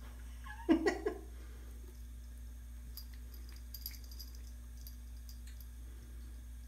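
Cat licking at a bathroom sink faucet, with faint wet ticks and drips about three to four seconds in. About half a second in there is a brief pitched vocal sound in a few quick pulses, the loudest thing in the clip.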